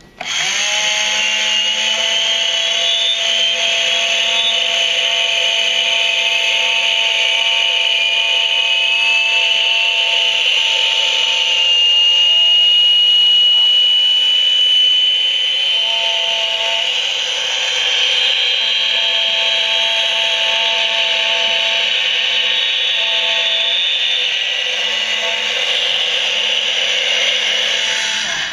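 Haynes build-your-own jet engine model running through its timed cycle. Its small electric motor whirs loudly as it spins the plastic fan and compressor stages, almost overpowering the model's jet sound. A high whine rises slowly in pitch over the first dozen seconds, and the whole sound starts and cuts off abruptly.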